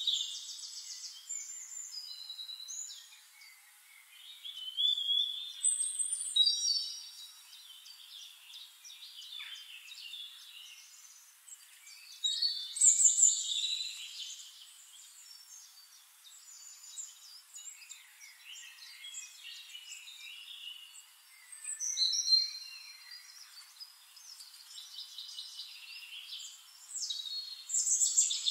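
Songbirds singing: short phrases of high chirps and quick trills, coming in bursts every few seconds.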